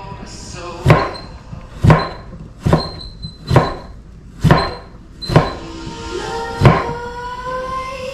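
Kitchen knife chopping fresh ginger on a wooden cutting board: seven sharp knocks, about one a second, over background music.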